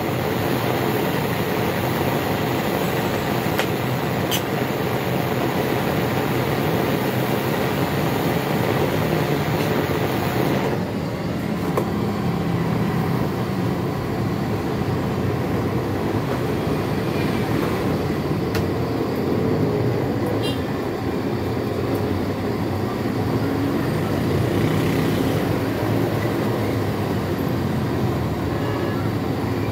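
Liquid-fuel blow lamp burning with a steady rushing hiss as it heats a radiator part for soldering. The upper hiss turns duller about eleven seconds in.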